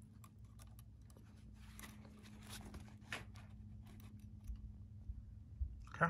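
Faint crackling and rustling of gloved hands handling multimeter probes against the furnace's supply wires, with scattered small clicks over a low steady hum.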